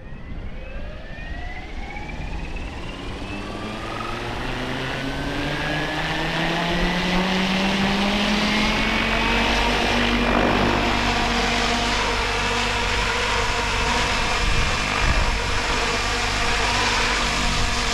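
XLPower Specter 700 V2 radio-controlled helicopter spooling up: the electric motor's whine and the rotor's hum rise in pitch and grow louder over the first several seconds, then hold steady at flight speed as it lifts into a hover.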